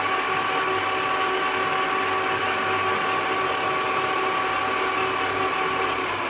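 Mazak 18 x 60 gap bed lathe running under power: a steady mechanical hum with a whine from the headstock gearing. Right at the end the pitch starts to drop as it begins to spin down.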